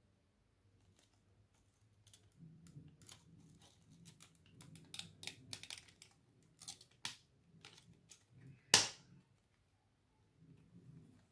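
Clear plastic CD jewel case clicking and creaking as fingers press the centre hub, then one loud sharp snap as the disc pops free of the hub's teeth.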